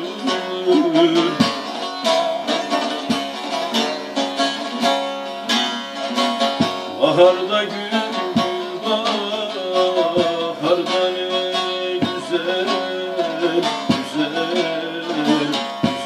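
Bağlama (Turkish long-necked saz) played solo, a plucked and strummed folk melody with strong accented strokes every couple of seconds.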